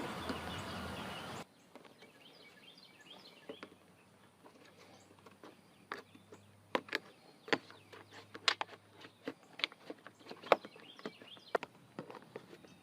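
A steady rushing noise cuts off suddenly about a second and a half in. Then comes a low background with faint bird chirps, and from about halfway through, irregular sharp clicks and light knocks, one or two a second, of hand work on a travel trailer's corner trim.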